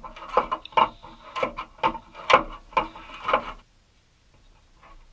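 A cut-out section of rusty sheet steel from a VW Beetle's inner rear quarter being pulled and worked loose by hand, giving a run of sharp metallic clicks and knocks, about three a second, that stop about three and a half seconds in.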